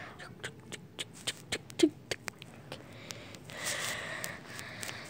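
A cat crunching pieces of dry cat food, a string of sharp irregular crunches over the first two and a half seconds, followed by a soft rustle.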